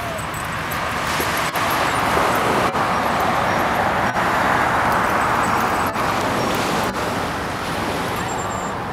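Steady rush of road traffic, swelling for a few seconds in the middle as a vehicle passes and then easing off.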